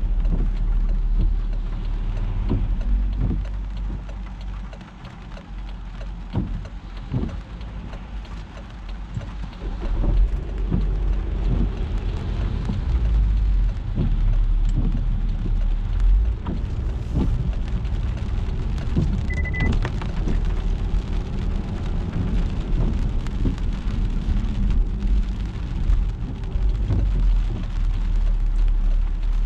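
Rain pattering on a moving car, with the steady low rumble of the car driving and its tyres on the wet road; the noise dips for a few seconds early on, then returns. A short high beep sounds about two-thirds of the way through.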